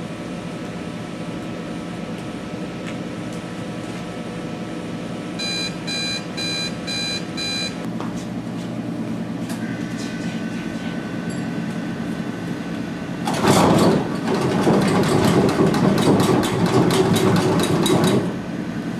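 A steady background hum. About six seconds in, five short, evenly spaced electronic beeps. Near the end, several seconds of loud noise full of rapid clicks.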